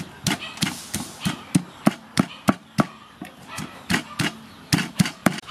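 Wooden pestle pounding garlic cloves and dried chili in a wooden mortar: rhythmic thuds at about three strokes a second, with a brief softer pause a little past halfway.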